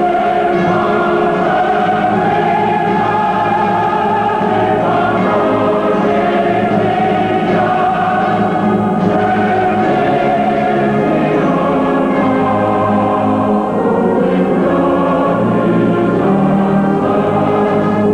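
Choral music: a choir singing slow, long-held chords that change every few seconds.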